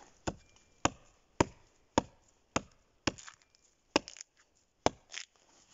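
An axe chopping notches into a fallen log: about eight sharp strikes into wood, roughly two a second, with a short pause about three seconds in.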